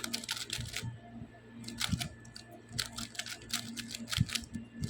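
Plastic 2x2 Rubik's cube being turned by hand, its layers clicking in quick bursts of several turns as the R U R' U' move sequence is run.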